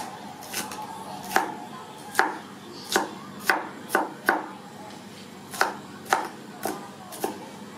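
A large knife chopping green bell pepper strips on a cutting board: about eleven sharp knocks of the blade striking the board, unevenly spaced, some in quick runs and some with pauses between.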